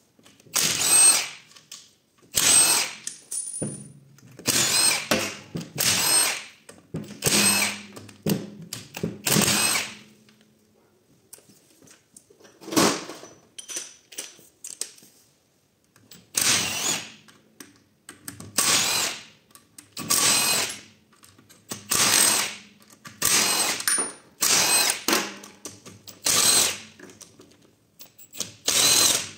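Cordless impact wrench run in short bursts of about a second each, fifteen or so times, undoing the casing bolts of an Audi multitronic CVT gearbox. There is a pause of a few seconds midway, broken by one short burst.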